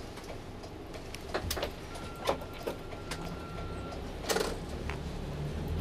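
Interior of a highway coach creeping along at low speed: the diesel engine's low, steady rumble, with scattered clicks and rattles from the cabin and a faint steady high beep lasting about two seconds in the middle. The engine note grows stronger near the end as the bus pulls forward.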